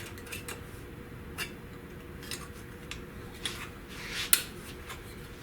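Scattered light metallic clicks and taps from handling and working a sheet-metal floor patch with hand tools, the sharpest one about four seconds in.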